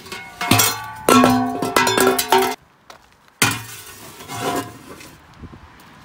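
Rusty steel exhaust pipe and muffler sections clanking and ringing against each other as they are loaded into a car's trunk, in two bursts with a short pause near the middle.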